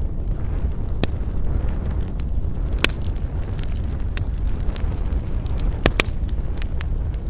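Wood campfire burning: a steady low rumble of flames with frequent sharp crackles and pops, the loudest about a second in, near three seconds, and two close together near six seconds.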